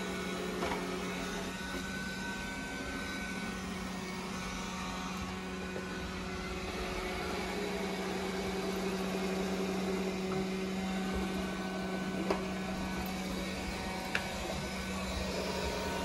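iHome AutoVac Eclipse robot vacuum running on a hardwood floor: a steady motor hum with a constant whirr of suction and brushes. There are two sharp clicks in the last few seconds.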